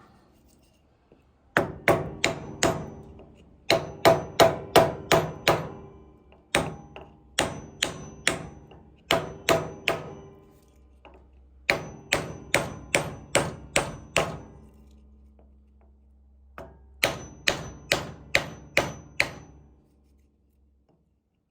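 Hammer striking metal in quick runs of blows, about three a second with short pauses between runs, each blow with a faint metallic ring: tapping the key into the keyway as a sawmill clutch is fitted onto the engine shaft.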